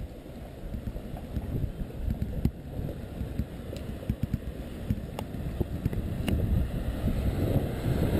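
Wind buffeting the microphone: a gusting low rumble that grows louder near the end, with a few faint ticks.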